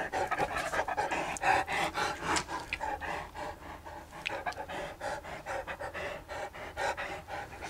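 A large long-haired dog panting hard in quick breathy strokes, right up at the microphone.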